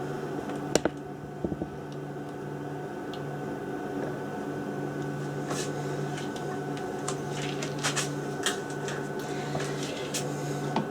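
Steady hum of a kitchen appliance or fan, with a few light clicks and knocks of kitchen things being handled.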